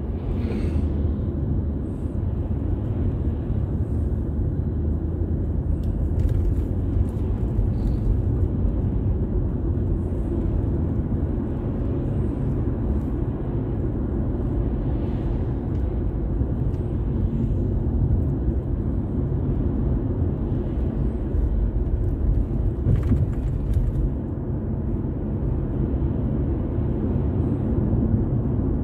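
A car driving along a road: a steady, low rumble of engine and tyre noise.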